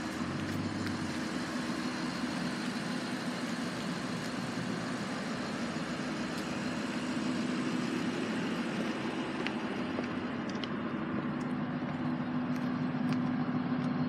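Car engine idling steadily, a low even hum that grows a little louder near the end.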